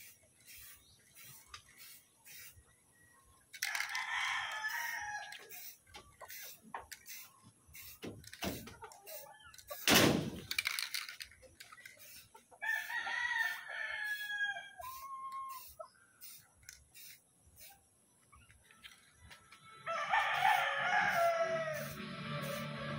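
A rooster crowing three times: about four seconds in, about thirteen seconds in, and a longer crow near the end. A loud, brief rushing noise comes about ten seconds in.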